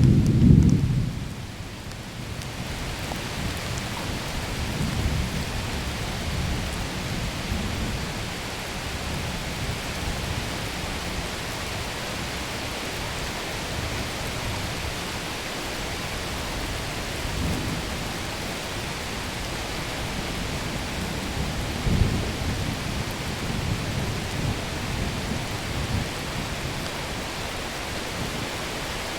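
Thunderstorm: steady rain hiss with thunder rumbling through it, loudest in a clap right at the start, with further rolls about five to eight seconds in and again around twenty-two seconds in.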